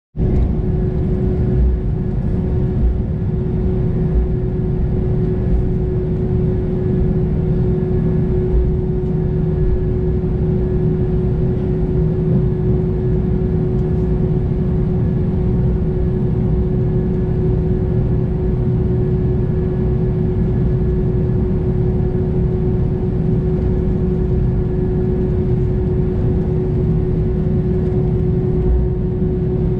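Inside the cabin of an Airbus A320 taxiing with its engines at low power: a steady low rumble with a constant mid-pitched whine.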